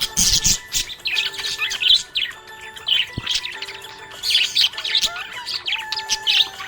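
Small pet parrots chattering: a busy, continuous stream of short high chirps and squawks.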